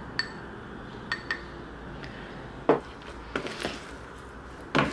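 A few light ringing clinks of a fork scraping and tapping a small dressing bowl, then salad servers knocking against the mixing bowl as a chickpea salad is tossed, with several sharper knocks in the second half.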